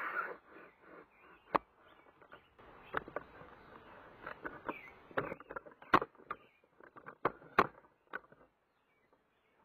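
Handling noise from a camera being picked up and moved: low rustling with irregular sharp clicks and knocks, several of them loud, which stop near the end.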